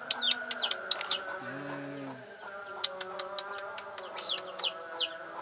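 Small birds chirping in short, quick, falling notes, many times over a steady drone, with one short low call about a second and a half in.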